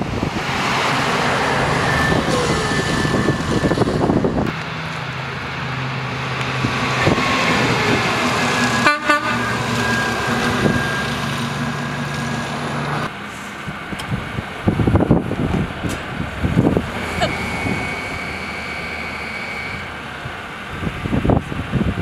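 Snowplow truck engines running as the trucks pass on a snowy street, with wind gusting across the microphone at times.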